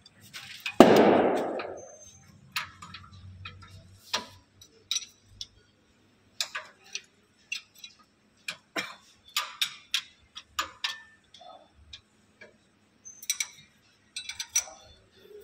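Steel hand tools clicking and clinking against the bolts inside a tractor's clutch housing during a clutch plate change: short, irregular metallic ticks, one or two a second. About a second in there is a loud burst of noise that fades out over about a second.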